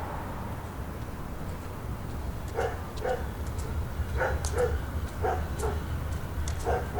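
A dog barking in short barks, mostly in pairs, starting a few seconds in, over a steady low background rumble of suburban ambience.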